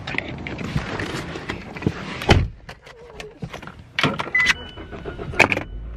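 Car sounds: rustling, a door shutting with a loud thump about two seconds in, then several clicks and a brief steady chime tone, with a low steady rumble starting near the end.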